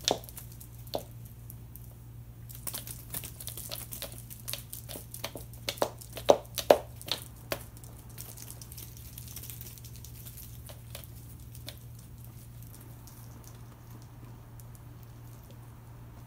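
A cat playing with a wand toy on a wooden floor, pawing, scrabbling and rolling: a burst of irregular taps and clicks, the loudest about six to seven seconds in, then only a few faint ones.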